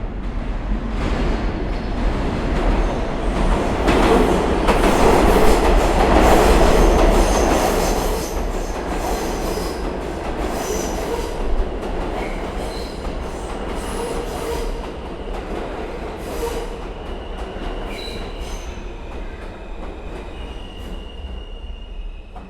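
New York City subway train pulling into a station: a heavy rumble with wheel clatter builds to its loudest a few seconds in, then slowly dies away as the train slows. High squealing tones from the wheels and brakes come in near the end as it comes to a stop.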